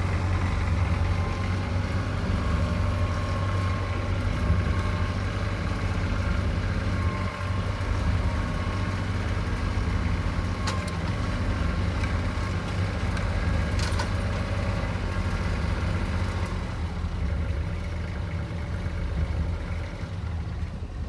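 Compact tractor's engine running steadily at low speed while the tractor is driven and backed into place, with two brief sharp clicks partway through.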